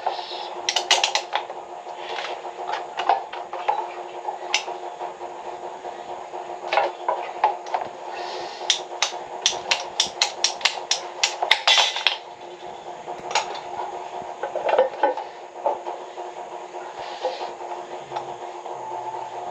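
Sharp metallic clinks and taps from hand tools and fittings being handled during pipe repair work. In the middle there is a quick run of about five taps a second. A steady hum sits underneath.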